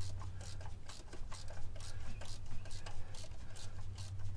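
Irregular light clicks and rubbing from a gloved hand working a spark-plug socket on a long extension down among the engine's rear cylinders, over a steady low hum.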